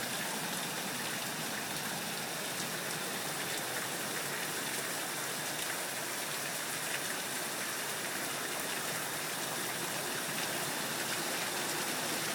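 Heavy rain pouring down steadily, a dense even hiss with scattered drop ticks, with water gushing and running off.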